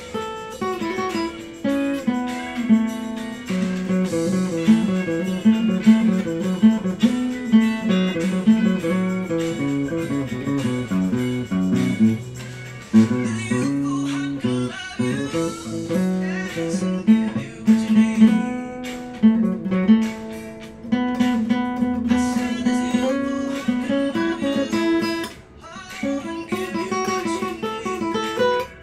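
Acoustic guitar solo: quick single-note melodic runs picked in succession, with lower notes underneath, dipping briefly in loudness near the end.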